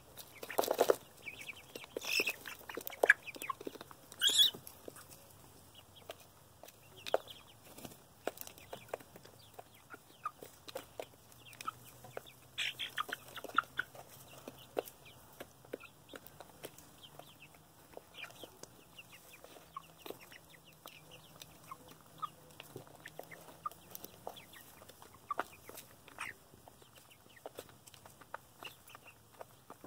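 Six-week-old Cornish chickens feeding from a plastic pan: many short taps and clicks of beaks pecking, with scattered clucks and calls, a few louder ones in the first five seconds and again about halfway through.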